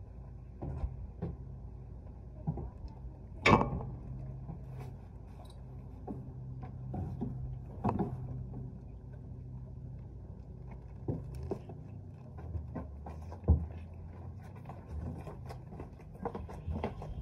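A saddled horse standing tied on concrete, shifting its feet: scattered sharp hoof knocks, the loudest a few seconds in and again about two-thirds through, over a steady low hum.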